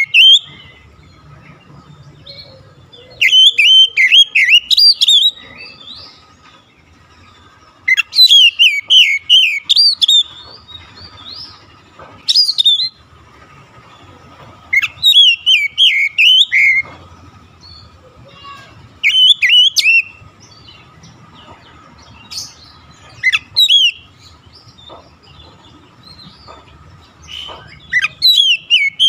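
Oriental magpie-robin (kacer) singing: loud bursts of quick, varied whistled notes, each up to about two seconds long, coming about eight times with pauses of a few seconds between. A faint steady high hum runs underneath.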